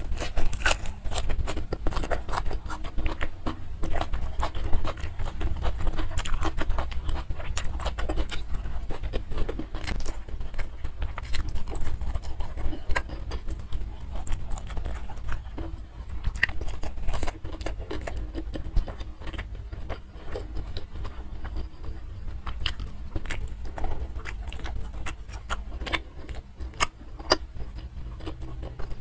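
Close-miked chewing: a mouthful of raw leafy greens crunched and chewed, with a dense, irregular run of wet mouth clicks and smacks. A steady low hum lies underneath.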